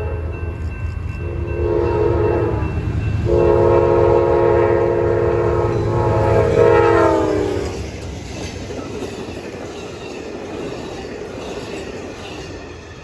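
Horn of an Amtrak GE P42DC diesel locomotive sounding a chord in a short blast and then a long one, the chord's pitch dropping near its end as the locomotive passes, over the low rumble of its diesel engine. The steady rolling noise of the passenger cars going by follows.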